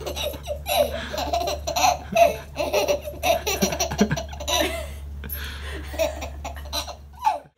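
Baby laughing in a long run of short belly-laugh bursts, cutting off suddenly near the end.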